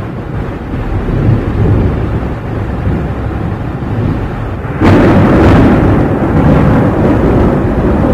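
Thunder: a low rolling rumble, then a sudden loud thunderclap about five seconds in that rolls on.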